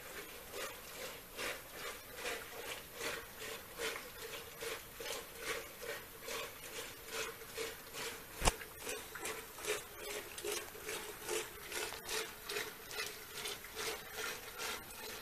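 Traditional Nepali wooden churn (madani) spun back and forth by a pulled cord in a pot. It makes a rhythmic rubbing, swishing sound at about three strokes a second, with one sharp click about eight seconds in.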